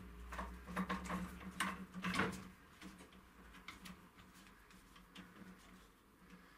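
Small knocks and clicks of a floodlight being handled and clamped onto a metal arm, most of them in the first two seconds or so, then only faint ticks. A faint steady hum runs underneath.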